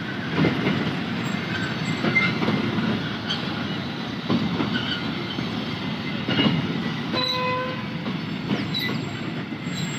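Freight train of loaded oil tank wagons rolling slowly past, its wheels clacking over rail joints with a heavy thump about every two seconds. A short horn note sounds about seven seconds in.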